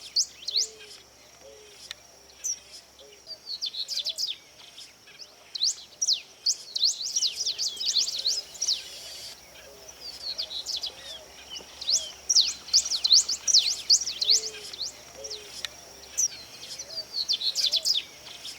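Wild birds chirping and calling: many quick, sharp high chirps coming in bouts, with fainter lower calls underneath.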